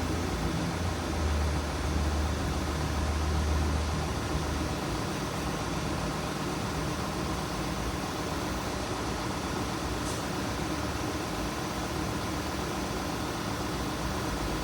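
2016 Volkswagen Tiguan running with the air conditioning on: a steady engine and fan drone. A low hum under it stops about five seconds in.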